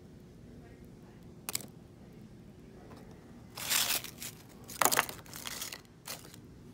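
Crisp freeze-dried peach slices being handled: a single tick, then a few short, dry crackling crunches about halfway through as pieces are picked up and pressed, the loudest about five seconds in. The crunch is the sign of fruit dried right through.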